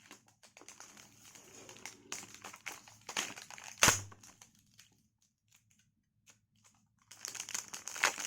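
Parcel packaging crinkling and rustling as it is handled and opened, with one sharp click about four seconds in. It goes quiet for a couple of seconds, then the crinkling starts again near the end.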